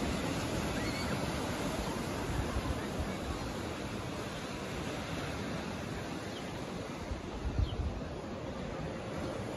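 Steady wash of small waves breaking on a sandy beach below, with wind buffeting the microphone in uneven gusts, one stronger gust near the end.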